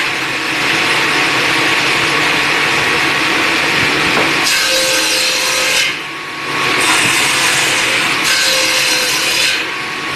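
A tool cutting or rasping wood, running as a steady loud scraping with short breaks about six seconds in and near the end.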